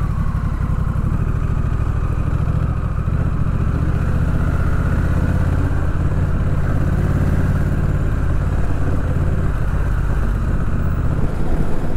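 2021 Honda Rebel 1100 DCT's parallel-twin engine running at low revs with a steady low note as the bike lane-filters slowly between lines of stopped cars.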